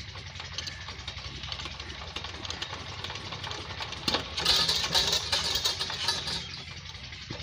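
Old Peter diesel engine running steadily at idle, a fast, even low thudding beat. About four seconds in, a louder hissing rush rides over it for about two seconds.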